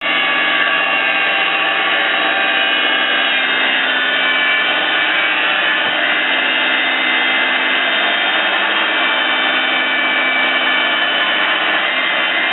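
R-60 band sawmill running, its 5.5 kW electric motor driving the band blade: a loud, steady, high-pitched whine made of several tones. The pitch shifts slightly about three and a half seconds in.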